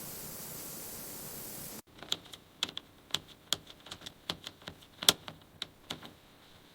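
A steady hiss cuts off abruptly about two seconds in. A run of sharp, irregular clicks and taps follows, the loudest near the end.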